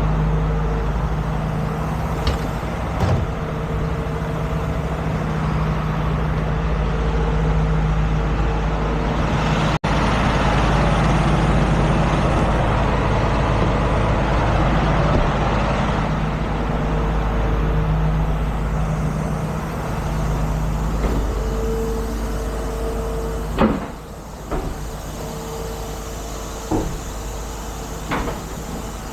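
Heavy tow truck's diesel engine running steadily, with a sharp clunk about 24 seconds in after which the engine sound drops and a few lighter clicks follow.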